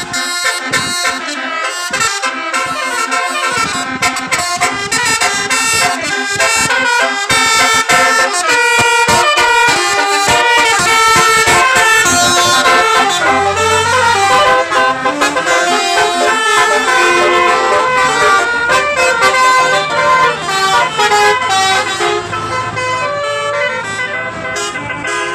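Telolet basuri bus horn, an 18-note musical air horn, playing a fast melody of changing horn tones.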